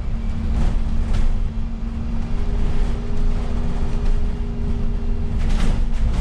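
Alexander Dennis Enviro400 City double-decker bus heard from inside the upper deck while driving: a steady low engine and drivetrain rumble with a constant hum. A few short knocks or rattles cut through, the loudest near the end.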